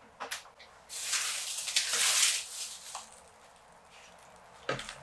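Thin plastic produce bag crinkling and rustling as it is handled, for about a second and a half, with a couple of light clicks as the fridge door is opened and a soft knock near the end.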